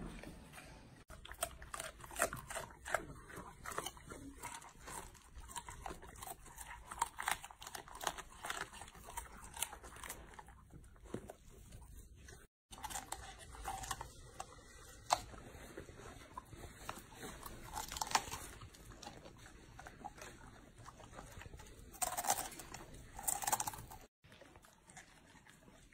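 Golden retrievers, an adult and a puppy, crunching and chewing a raw pear and raw cauliflower and romanesco: a steady run of crisp bites and chomps, with two louder crunches near the end.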